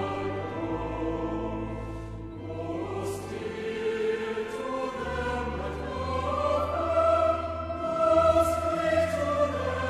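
Choral music: a choir singing long held notes over sustained low bass notes.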